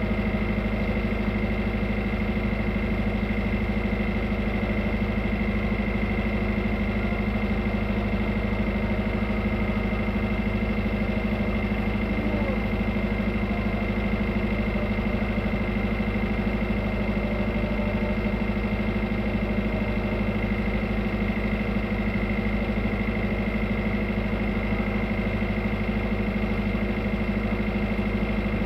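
A tugboat's diesel engine running steadily at an even speed: a deep hum with a thin, steady whine above it, unchanging throughout.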